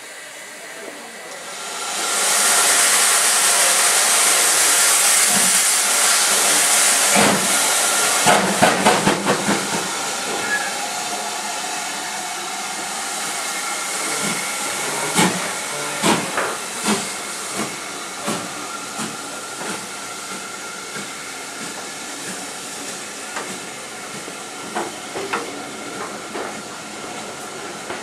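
Steam locomotive moving off: a loud hiss of steam sets in about two seconds in and lasts several seconds, then a quick run of sharp exhaust beats, followed by irregular clanks and knocks from the train that grow fainter as it draws away.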